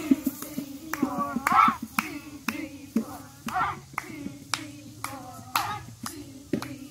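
Hand claps keeping a steady beat, about two a second, with voices sounding along underneath.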